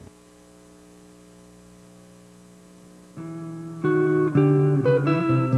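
Instrumental music: a quiet held note, then about three seconds in a much louder passage of plucked, guitar-like notes begins.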